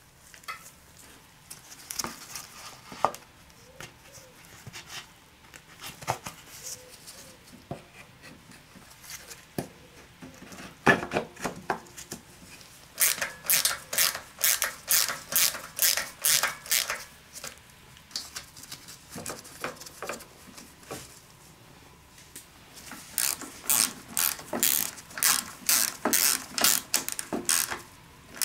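Socket ratchet wrench clicking in quick runs as nuts are run down on the air-filter base plate over the carburettor, with scattered knocks and clinks of tools and metal parts in between. The longest runs of ratcheting come about halfway through and again near the end.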